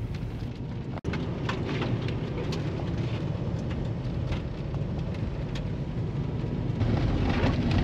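Steady low rumble of road and engine noise inside a moving car on a snowy road, with scattered light ticks and crackles. The sound drops out briefly about a second in.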